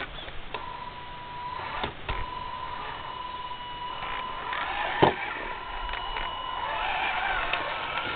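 Stock MST CMX Bronco RC crawler's electric motor and gearbox whining as it crawls over rocks and roots, stopping briefly about two seconds in as the throttle eases off. A sharp knock about five seconds in.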